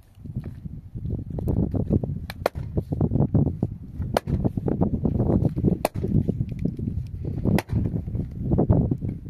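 A pickaxe striking hard, stony ground, in sharp single blows about every one to two seconds, over a low rumble.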